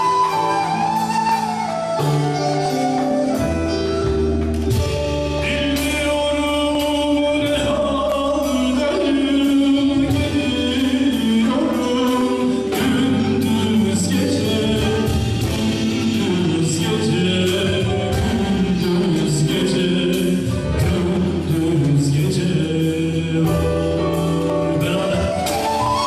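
Live music: a man singing into a microphone over a beat on a hand drum, with low held bass notes underneath.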